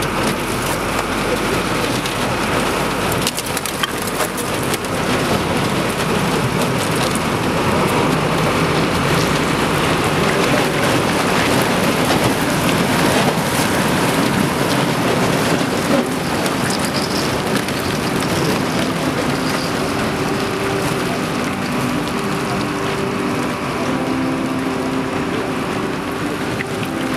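Thin new ice crackling and crunching continuously as a boat's hull breaks through it. In the last third a steady droning tone comes up beneath the crackle.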